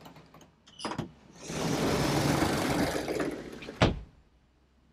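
Manual boat sunroof being slid along its track: a couple of clicks, about two seconds of sliding, then a sharp thud as it stops.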